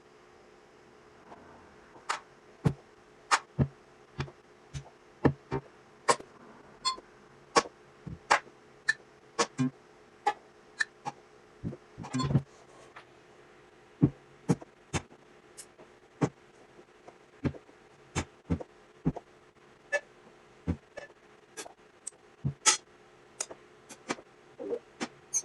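Short one-shot drum samples played back one at a time from an Akai MPC at irregular intervals, about one a second, over a faint steady hum.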